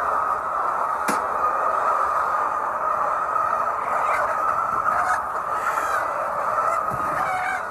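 A flock of hens in a poultry house clucking together in a dense, steady chatter, with one sharp click about a second in.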